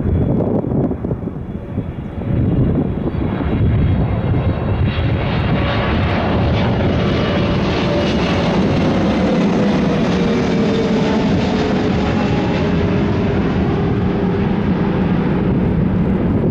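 Boeing 777F freighter's twin GE90 turbofans going by on arrival: a steady jet roar that swells about three to five seconds in, with a whining tone that drops in pitch as the aircraft passes.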